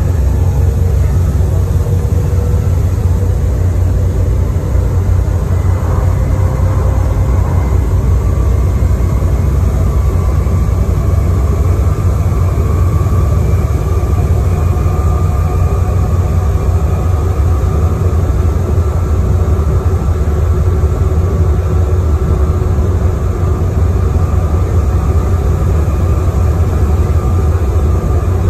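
Bus engine and road noise heard from inside the saloon while the bus is driving: a loud, steady low hum with a faint whine that rises in pitch partway through.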